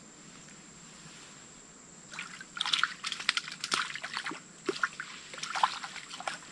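Water splashing and trickling close by in short irregular bursts, starting about two seconds in after a faint quiet stretch.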